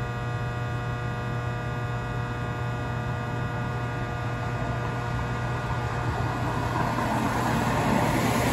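Light-rail car standing at the platform with its electrical equipment running: a steady hum under a stack of steady whining tones. A wash of noise swells about seven seconds in.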